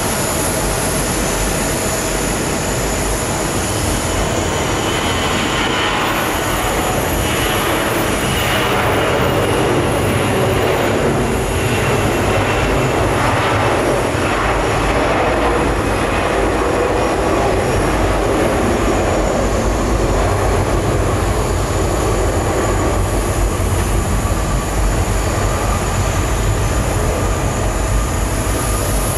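Jet airliner takeoff roar: an Airbus A340-300's four CFM56 turbofans at takeoff power during its takeoff roll, a steady rumble that grows a little louder about a quarter of the way in.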